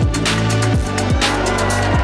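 Background music with a beat: deep bass drum hits that fall sharply in pitch, over a held bass note and crisp high percussion.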